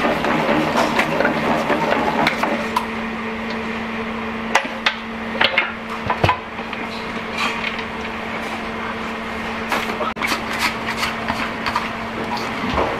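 Hobart stand mixer's dough hook working a stiff dumpling dough, the machine stopping a couple of seconds in. Then clanks and knocks of the big steel mixing bowl as it is taken off the mixer and the dough is tipped out, over a steady hum.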